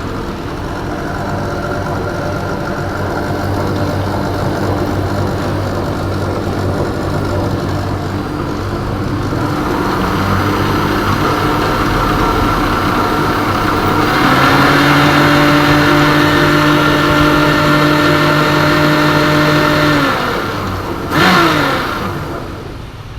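Electric mixer grinder motor running loudly with an abnormal noise, the fault it was brought in for repair over. It is switched up through speeds 1, 2 and 3, rising in pitch and getting louder at each step about ten and fourteen seconds in. It stops about twenty seconds in.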